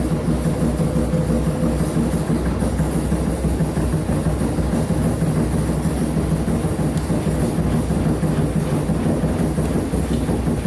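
Electrolux LF10 top-loading washing machine in its intermediate spin with a single blanket, running with a loud, continuous rumbling rattle. The load is off balance, making the machine shake hard in its cabinet.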